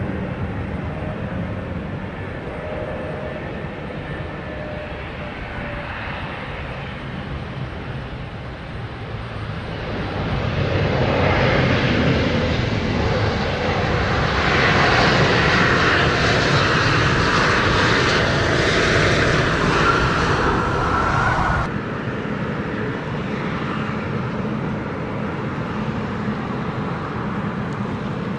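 Jet engines of an Embraer E-Jet airliner on approach and landing, swelling to loud running with a high whine as it passes on the runway. About two-thirds of the way in, this sound cuts off abruptly and is replaced by quieter, steady aircraft engine noise.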